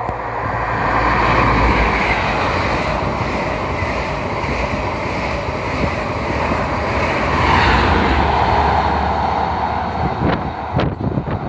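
InterCity 125 High Speed Train, diesel Class 43 power cars with Mark 3 coaches, passing through the station at speed. The engine and wheel noise rises as the leading power car arrives, holds as a steady rush while the coaches go by, and surges again about two-thirds of the way through as the rear power car passes. Near the end, gusts of slipstream buffet the microphone.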